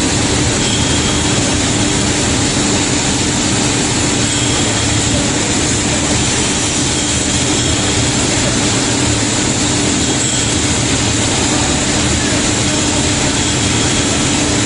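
Automatic powder coating booth running: a loud, steady rush of air from the booth's powder extraction and spray guns, with a steady hum underneath.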